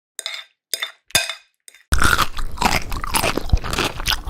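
A few short, sharp sounds, then about two seconds in a dense, continuous crunching and crackling starts and keeps going.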